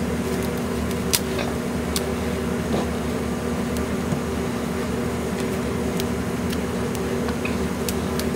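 A steady mechanical hum, like a fan or appliance motor running, with a few light clicks and taps over it.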